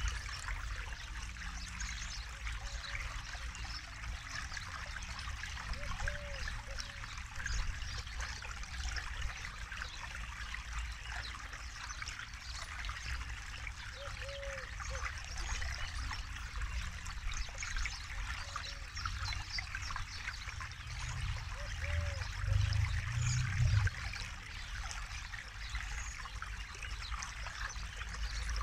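Forest river flowing over stones: a steady babbling and trickling of water, with a low rumble that swells briefly about three quarters of the way through.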